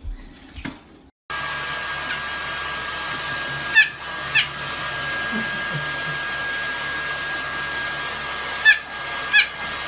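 A hair dryer starts suddenly about a second in and blows steadily with a thin whistling tone. A small fluffy dog gives a few short, sharp yaps over it, in two quick pairs.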